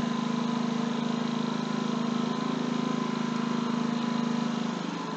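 Ryobi 4000-watt open-chassis inverter generator running steadily, its air-conditioner load just switched off. Near the end the engine settles to a slightly lower, quieter speed.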